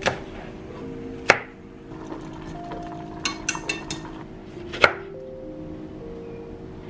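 Kitchen knife chopping vegetables on a plastic cutting board: a few separate sharp cuts, with a quick run of lighter taps near the middle, over soft background music with held notes.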